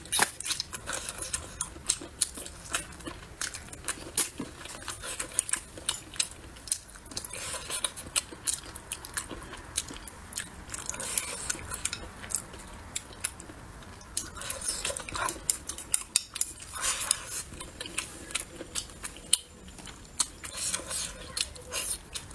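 Close-miked eating of soft braised pork belly: chewing and lip smacking, with many sharp clicks of chopsticks against the bowl and a few longer hissy stretches of mouth noise.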